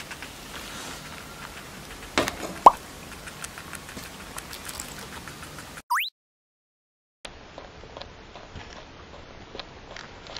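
Guinea pig's teeth clicking and crunching as it eats apple chips: quick small clicks, with two louder ones about two seconds in. Near six seconds a short rising 'plop' sound effect, then a second of silence before faint clicks resume.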